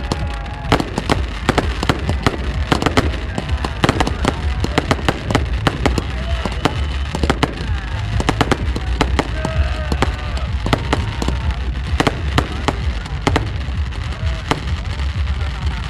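Fireworks display: a steady barrage of sharp bangs and crackles from exploding shells, several a second throughout, over a low rumble.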